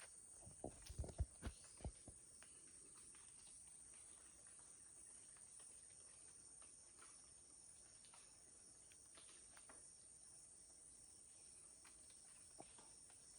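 Faint, steady high-pitched insect chorus. Several soft low thumps come in quick succession in the first two seconds.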